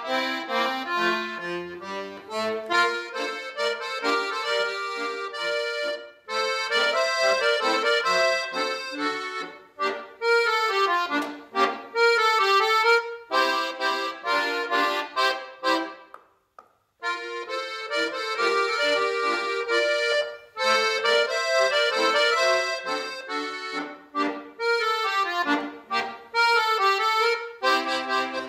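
Piano accordion (a Dino Baffetti) playing a tune in short, detached notes and chords, with a brief complete stop about sixteen seconds in before the playing resumes.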